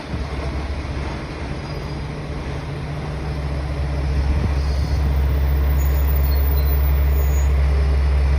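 A train running past with a heavy low rumble that grows louder through the second half.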